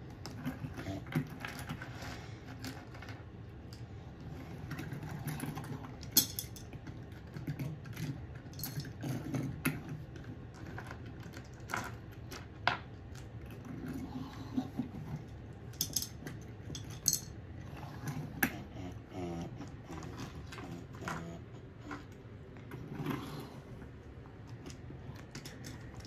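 Small pebbles and plastic toy construction trucks clicking and clattering now and then as they are handled, with scattered sharp clicks spread through the stretch.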